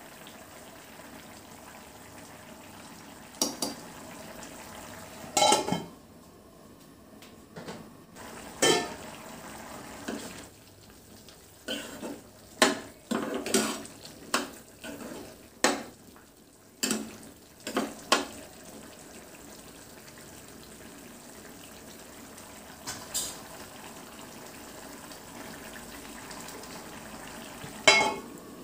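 A spatula stirring chickpea curry in a metal kadai, with a string of sharp knocks and clinks against the pan over several seconds. Near the end the steel lid clanks back onto the pan.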